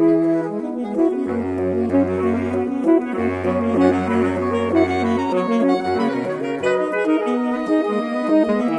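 Saxophone quartet, soprano down to baritone saxophone, playing a contemporary concert piece: busy moving lines in the upper voices over a low note that the baritone holds from about a second in, with one short break, until a little past the middle.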